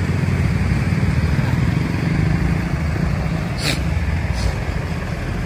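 Heavy truck engine running with a steady low rumble. A short hiss comes a little past halfway through, and a fainter one follows about a second later.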